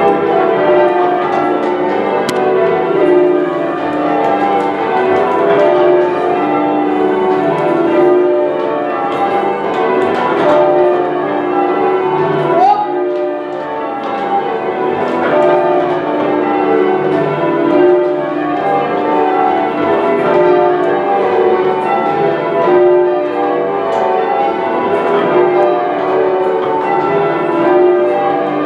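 Manchester Cathedral's ring of ten church bells being rung in changes: a continuous stream of overlapping bell strikes.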